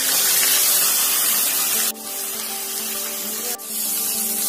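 Masala-and-flour-coated fish deep-frying in hot oil: a loud, steady sizzle that dips abruptly twice, about two seconds and three and a half seconds in.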